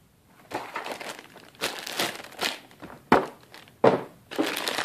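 Clear plastic bag wrapped around a small network switch crinkling and rustling in bursts as the switch is handled and lifted out of its box, with two sharp knocks about three and four seconds in.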